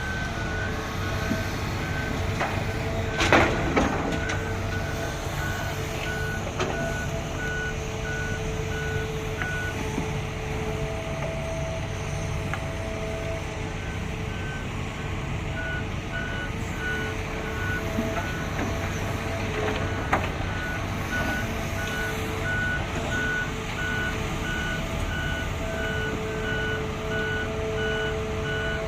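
Heavy construction vehicle's reversing alarm beeping about twice a second over a steady engine rumble, with a loud clank a few seconds in. The beeping stops for several seconds midway, then resumes.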